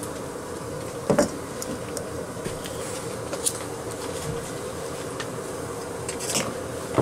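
BRS titanium gas canister stove burning at full output, a steady rushing hiss with a faint hum, and one sharp knock about a second in.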